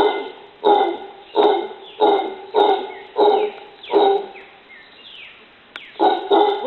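Dog barking repeatedly, about one bark every two-thirds of a second, pausing for a second or so a little past halfway before barking again.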